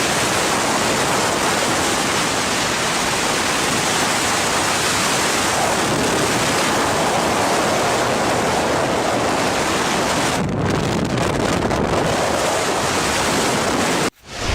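Hurricane-force wind blowing hard across the microphone, a loud, steady rush of noise that cuts off suddenly near the end.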